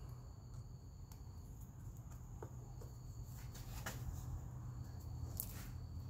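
Faint scattered clicks and creaks and one short squeak as a T-handle insertion tool forces a sticky rubber plug into a screw puncture in a car tire's tread, over a low steady hum.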